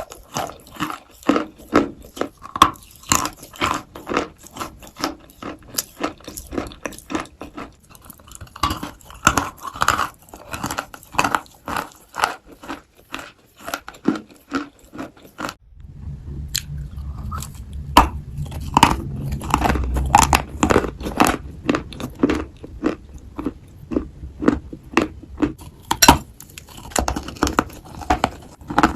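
Dry, powdery Turkestan white clay being bitten and chewed close to the microphone: a dense run of crisp crunches, about two or three a second. A low hum comes in about halfway through.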